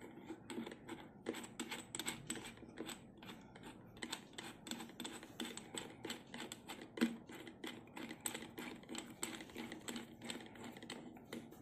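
Black+Decker hammer drill's 13 mm keyed chuck being turned by hand to close its jaws on a metal drill bit: a run of small, irregular clicks and ticks, several a second.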